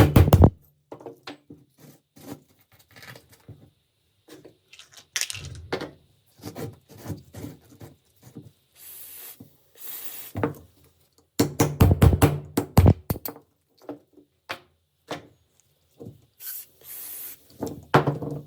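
Hand work on rusty gun parts: runs of quick back-and-forth scraping or rubbing strokes, scattered light knocks, and a few short hissing sprays.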